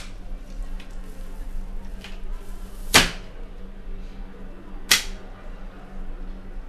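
Two sharp swishes about two seconds apart, the first the louder, over a steady low hum.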